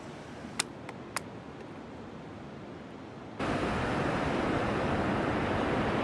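Ocean surf and wind on the microphone: a faint steady hiss with three short sharp clicks about a second in, then a sudden switch a little past halfway to a much louder, even rush of surf and wind.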